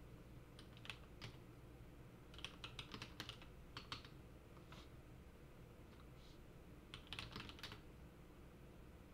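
Computer keyboard keys tapped in faint, short bursts of typing: a few keystrokes about a second in, a quick run of them around two to four seconds, and another run about seven seconds in.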